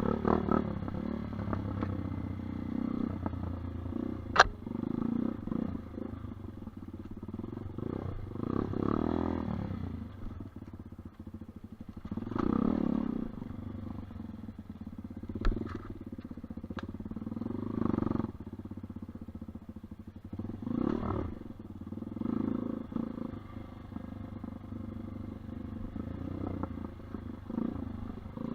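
Off-road motorcycle engine running, its revs swelling and dropping every few seconds, with a few sharp knocks along the way.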